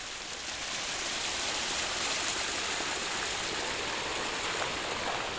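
Small brook swollen with heavy rain, rushing water running steadily.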